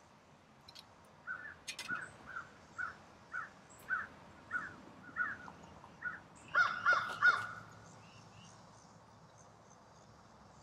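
A crow cawing in a steady series, about two caws a second, ending in three louder caws about seven seconds in. A light click near the start comes from the enamel coffee pot being handled.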